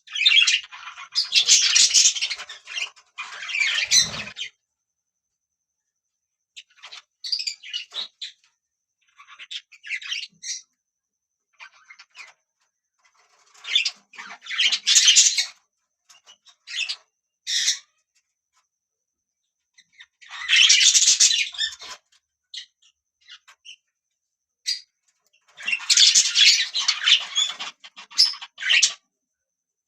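Budgerigars chirping and chattering in bursts of one to four seconds, with silent gaps of a few seconds between them.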